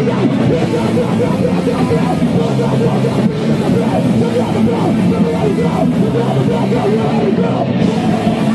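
Live band playing loud, heavy rock music.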